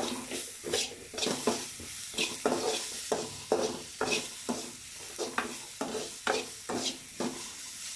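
A spoon scraping round a pan, stirring onions, tomatoes and spice powder frying in oil, in quick strokes about two to three a second over a steady sizzle.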